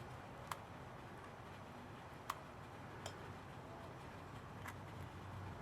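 Four light, sharp clicks spread out over a faint steady hiss: small tools and parts being handled during a smartphone battery removal.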